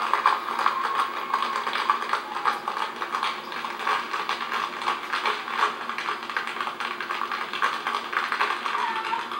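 A group of tap dancers' shoes striking the stage floor in quick, dense rhythms of clicks.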